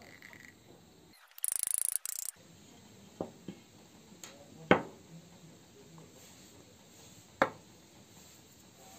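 PVC pipe fittings and a rubber washer handled and set down on a wooden table: a few sharp taps and knocks, the loudest about halfway through and another near the end. About a second and a half in, a brief harsh rasping noise, under a second long.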